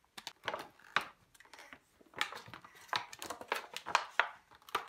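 Plastic toy packaging crinkling and rustling as it is handled, in a run of irregular crackles that come thicker in the second half.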